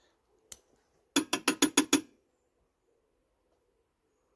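A single click, then a quick run of about seven sharp, ringing metallic taps in under a second: the Briggs & Stratton mower engine's carburettor being tapped to reseat its float needle and seat, which the owner suspects was letting the carb drip.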